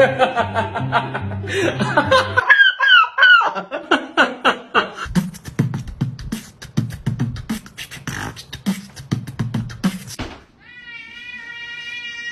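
A rhythmic vocal beat like beatboxing, with sung or voiced sounds at first and then a fast run of clicks over low thumps. A long, steady, high held note starts near the end.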